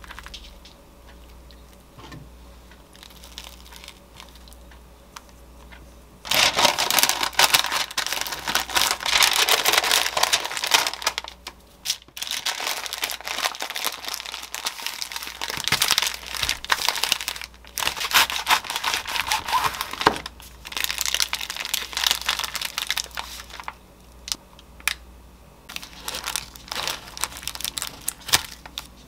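Brown paper crinkling loudly as it is folded and wrapped tightly around a sandwich by hand. It starts about six seconds in, after a quiet opening, and goes on in stretches with brief pauses.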